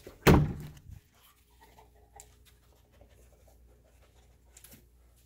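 A short, loud thud with a rushing tail about a third of a second in, then faint sniffing and scuffling of a searching detection dog's paws and nails among cardboard boxes.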